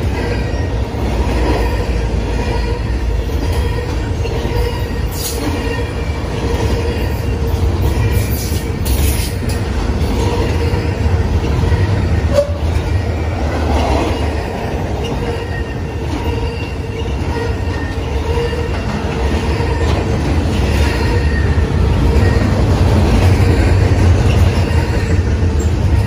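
BNSF intermodal freight train's trailer and double-stack container cars rolling past: a steady low rumble of wheels on the rails, with a faint steady whine and occasional higher wheel squeals over it.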